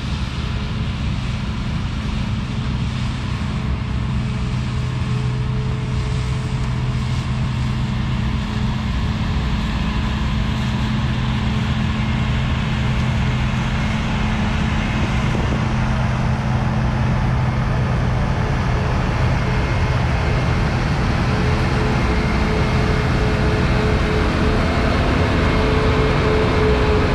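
Claas Lexion 430 combine harvester working under load while threshing rapeseed: a steady mechanical drone of engine and threshing machinery. It grows gradually louder as the machine approaches and passes close by near the end.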